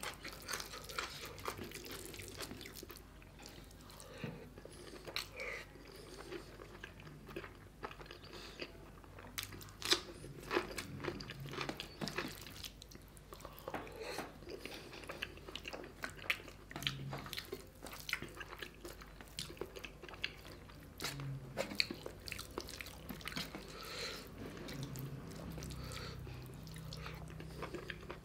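Close-miked chewing and mouth sounds of a man eating rice with chicken gizzard curry by hand, with irregular sharp clicks from his fingers mixing the rice on a steel plate.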